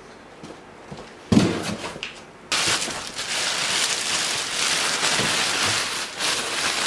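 Plastic packaging bag crinkling and rustling as it is pulled off a new miter saw inside its cardboard box: a sudden bump and rustle about a second in, then loud, continuous crinkling from about two and a half seconds in.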